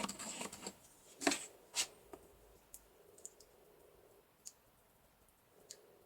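A brief scraping rustle, then two sharp clicks a little over a second in, followed by a few faint ticks, as small objects are handled.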